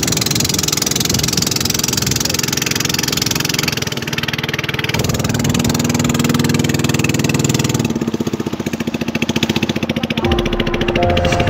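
Small boat engine running on LPG from a 3 kg gas cylinder, going steadily while the boat is under way, with water rushing along the hull. Music comes in near the end.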